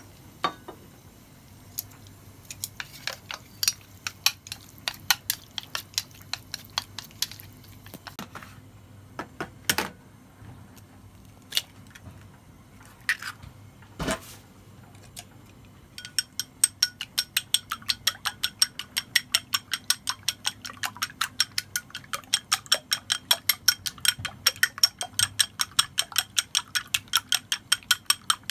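Utensil clinking irregularly against a steel bowl as diced chicken is mixed, then, from about halfway, an egg beaten in a ceramic bowl, the utensil clicking against the bowl in a fast even rhythm of about four strokes a second.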